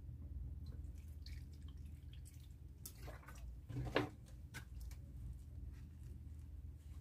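Hands working flour and water in a steel tray to knead chapati dough: soft wet squishing and scraping, with a louder knock about four seconds in. A steady low hum runs underneath.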